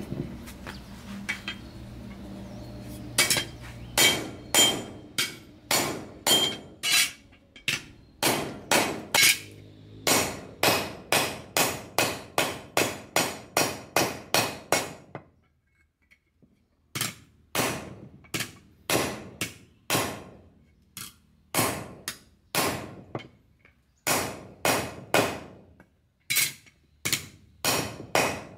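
Hammer striking a steel knife blade laid flat on a wooden stump: a steady run of ringing blows, about two a second, beginning about three seconds in and pausing for about two seconds midway before going on a little slower.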